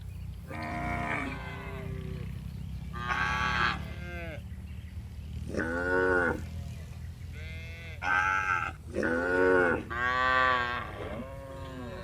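Cattle mooing: about eight drawn-out calls one after another at differing pitches, each falling away at its end, over a steady low hum.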